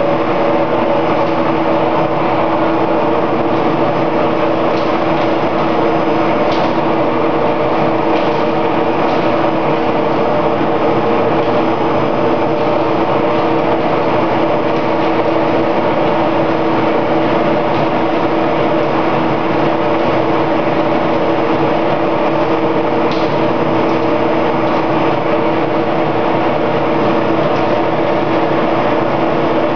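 Sawdust briquetting press machinery running: a steady, loud mechanical hum with several even tones, broken only by a few faint clicks.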